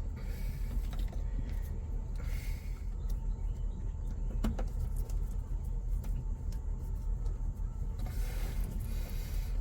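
A steady low hum, with a few brief rustles and light clicks of hands working on wiring, and one sharper click about four and a half seconds in.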